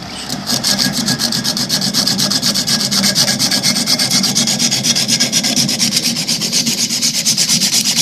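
Emery cloth rubbed rapidly back and forth around a steel refrigeration tube, a steady run of quick scraping strokes with a bright hiss. The tube is being scoured bare and clean so it can be brazed without leaks.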